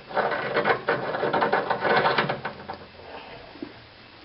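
Faucet valve stem, fitted with a new seat washer, being screwed by hand back into the valve body: a rapid run of small metallic clicks and rattles that fades after about two and a half seconds.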